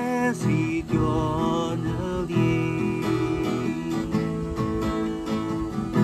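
Acoustic guitar strummed in a steady rhythm, with a man singing along in the first couple of seconds.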